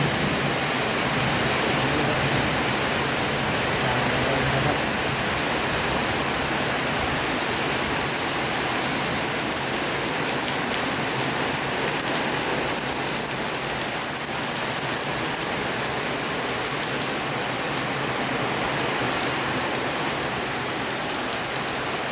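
Heavy rain pouring down steadily. A low rumble of thunder dies away about five seconds in.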